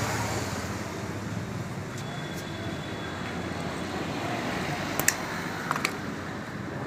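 A few light metallic clicks as the motorcycle chain's master-link lock is worked open, over a steady low background rumble.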